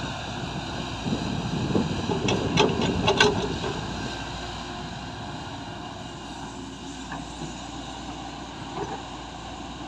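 Diesel engine of heavy earthmoving machinery running steadily. It grows louder for a few seconds, with a quick series of sharp metallic clanks about two to three seconds in.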